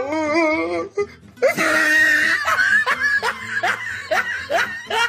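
A short burst of music with a wavering melody, breaking off about a second in, followed by a string of laughter, each laugh sliding up in pitch, about two or three a second.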